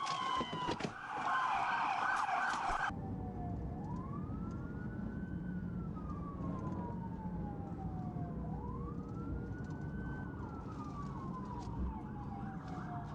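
Police siren in a slow wail, each cycle rising quickly and then falling slowly over about five seconds, above steady road and engine noise from a moving cruiser. For the first three seconds a loud rushing noise with another falling siren tone covers it, then cuts off abruptly.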